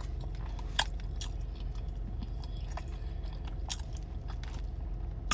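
A person chewing food close to the microphone, with a few sharp mouth clicks scattered through, over a low steady hum.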